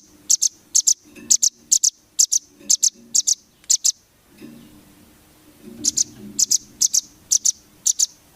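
Velvet-fronted nuthatch calling: sharp, high chip notes in quick doubles and triples, about two bursts a second, broken by a pause of about a second and a half midway.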